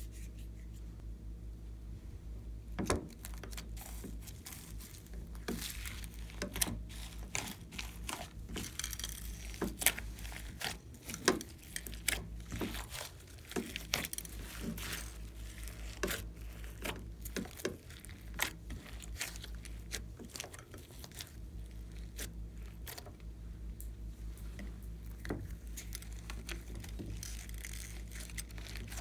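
Glossy slime being kneaded and stretched by hand, giving irregular sticky clicks and small pops, busiest in the first half, over a faint steady low hum.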